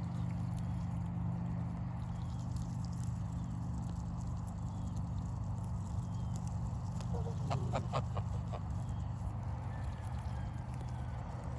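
Farm poultry giving a quick run of four or five short calls about two-thirds of the way in, over a steady low hum.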